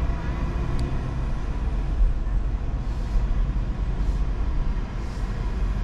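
Steady low rumble of a car heard from inside its cabin, waiting in a drive-thru line.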